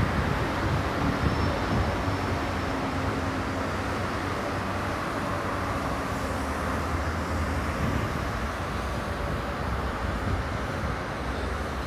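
Steady city traffic noise, with a low engine drone from road vehicles.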